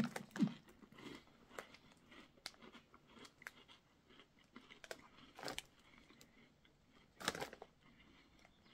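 A person chewing crunchy tarallini, small hard-baked dough rings, with irregular crunches and two louder bites, about five and a half and seven seconds in.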